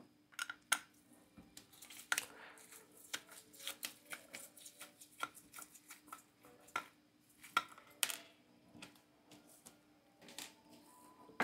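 Small screwdriver backing out tiny screws from an LED bulb's plastic housing: faint, scattered clicks and short scrapes of the metal tip on the screw heads and plastic.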